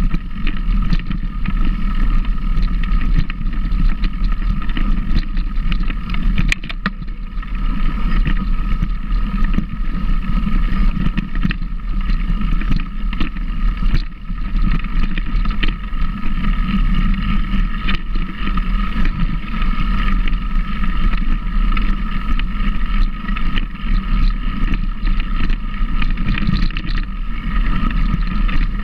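A motor running at a steady, unchanging speed, with wind rumbling on the microphone.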